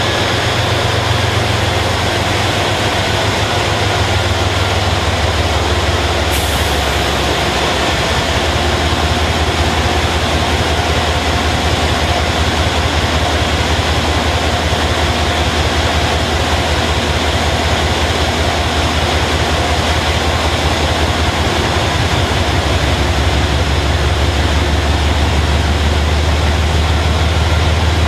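GE Genesis P32AC-DM diesel locomotive running with a steady, low engine drone as the train rolls slowly alongside the platform and comes to a stop.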